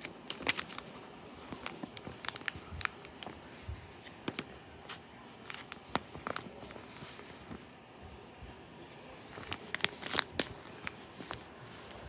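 Soft rustling and scattered light clicks of hands handling a paperback book and its paper pages, with a busier patch of rustles about ten seconds in.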